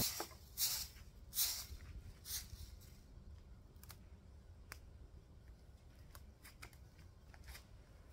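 Stiff stick broom sweeping over dry grass and dirt: three brushy swishes in the first couple of seconds, then scattered light ticks and rustles.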